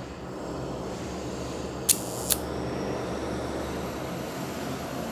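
Two sharp mechanical clicks about two seconds in, a little under half a second apart, from the Contax IIa rangefinder's focal-plane shutter being fired, over a steady low background rumble.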